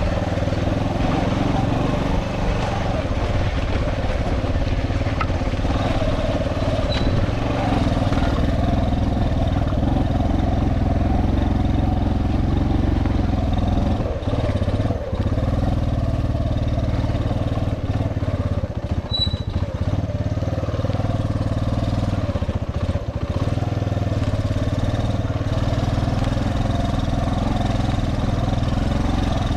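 Suzuki Djebel 125's single-cylinder four-stroke engine running steadily as the motorcycle is ridden along a rough dirt trail, with brief dips in the sound a few times around the middle.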